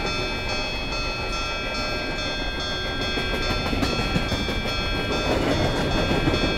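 Model freight train cars rolling along the layout track: a steady rumble of wheels on rail with steady high-pitched tones over it, a little louder and rougher near the end.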